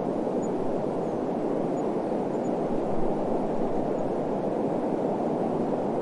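Desert wind blowing steadily, a constant low rushing hiss.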